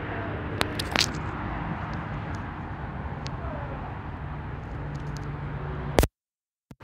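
Steady rumble of passing highway traffic, with a few sharp clicks about half a second and a second in. The sound cuts off abruptly to silence about six seconds in.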